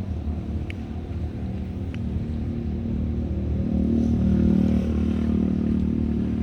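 An engine running with a steady low hum that grows louder about four seconds in.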